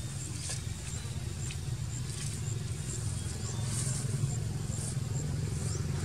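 Outdoor ambience dominated by a steady low rumble, with faint scattered clicks and a few short high chirps.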